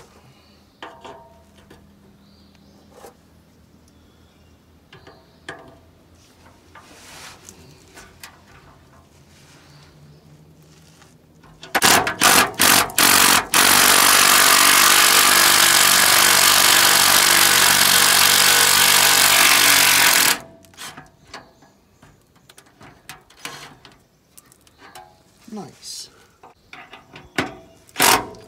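An impact wrench hammering at the exhaust hanger bolts: a few short bursts about twelve seconds in, then one long steady run of about seven seconds that cuts off abruptly, and more short bursts near the end. Before it, faint clicking from hand work with a ratchet on the same bolts.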